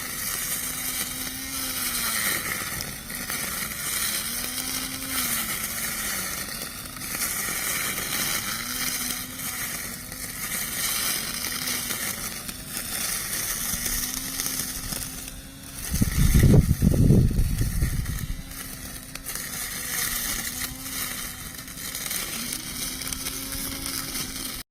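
Small lawn mower running while cutting, its motor tone dipping and recovering every second or two as the blade takes load, over a steady hiss. A loud low rumble lasts about two seconds past the middle.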